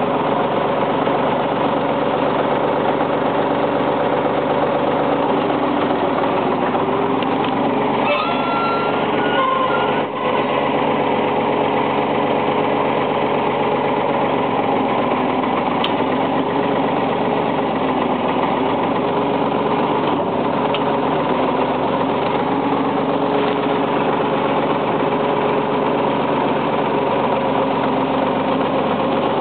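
Backhoe engine running steadily and loudly. About eight seconds in, a brief higher-pitched whine rises over it, and the level dips for a moment at about ten seconds.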